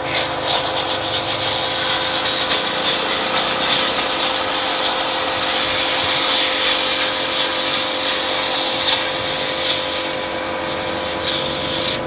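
Electric domestic pressure washer running with a steady motor hum, its high-pressure water jet hissing loudly as it blasts into a piece of cardboard to show that the pressure cuts it.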